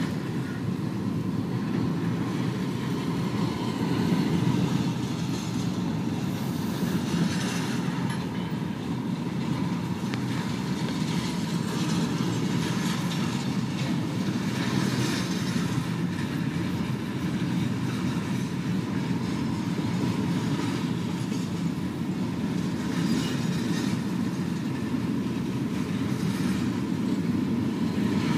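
Intermodal train's container cars rolling past steadily, the wheels clicking over the rail joints, with a few louder swells along the way.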